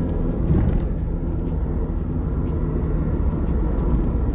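Steady low road rumble of a moving car, heard from inside the cabin: tyre and engine noise.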